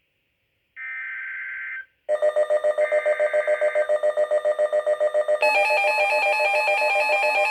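Emergency Alert System data bursts over NOAA Weather Radio: a raspy digital burst of about a second comes about a second in, and another follows. From about two seconds in, a louder, rapidly pulsing electronic alert tone takes over and turns at about five and a half seconds into a stepping run of electronic notes.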